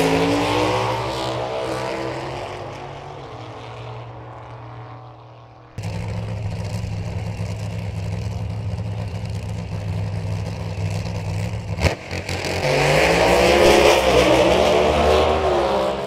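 Drag racing engines. One car is accelerating away and fading out, then an abrupt cut brings in a steady low engine rumble. A sharp crack comes a little before the twelfth second, and then an engine revs up hard, is loudest for a few seconds, and fades as it pulls away near the end.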